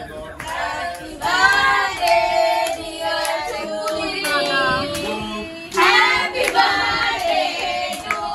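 Several voices singing together, women and children among them, with hand claps.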